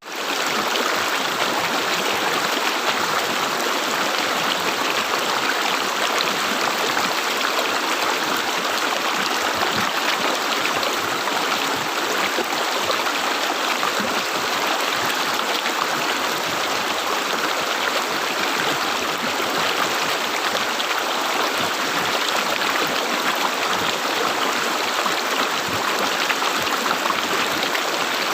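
River water flowing and gurgling in a steady, unbroken rush, after a momentary dropout at the very start.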